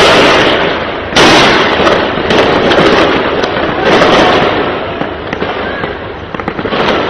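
Gunfire and explosions in a street battle: a sudden loud blast about a second in with a long echoing tail, further heavy blasts, then scattered sharp shots as the firing dies down.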